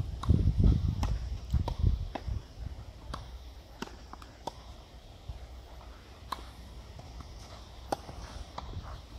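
Tennis balls being hit by rackets and bouncing on a clay court during a rally: about ten sharp pops at uneven gaps, coming every half second or so at first and thinning out after the middle. A low rumble sits under the first couple of seconds.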